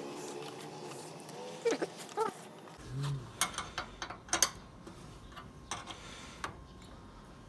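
Steel spanners clicking and tapping against the bolts and clamp of a newly fitted car battery as they are tightened: a run of sharp, irregular metallic clicks from about three and a half seconds in. Before that, a brief wavering call, like an animal's, is heard once in the background.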